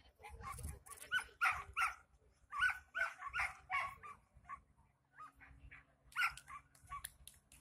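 Dog barking repeatedly, short high barks in quick runs, most in the first few seconds and again a little after six seconds in.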